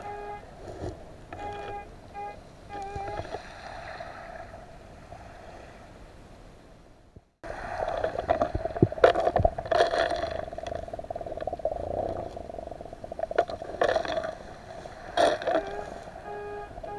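Underwater sound picked up by a camera: a steady water hiss and hum with scattered clicks and crackles from water movement and pebbles. It cuts out for a moment about seven seconds in, then comes back louder and busier.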